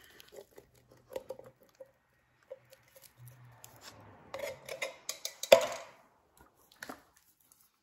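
Tins of sausage and beans being emptied into a cooking dish: soft squelches, light metal clicks and scrapes, and one sharp knock a little past halfway, the loudest sound.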